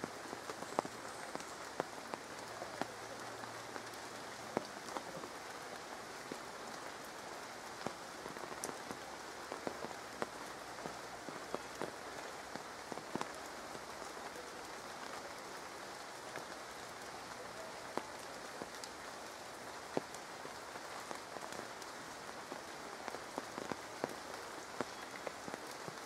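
Steady rain falling, with scattered single drops tapping sharply close by.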